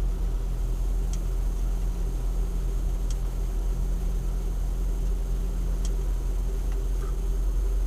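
Steady engine and road noise inside a moving car, picked up by a dash cam's built-in microphone, with a few faint ticks.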